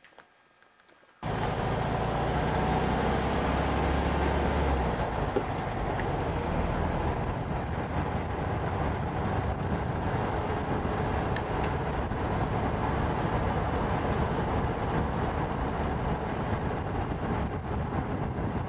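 Steady road and engine noise of a car heard from inside while driving, a loud even rush with a low hum under it. It starts suddenly about a second in, after near quiet.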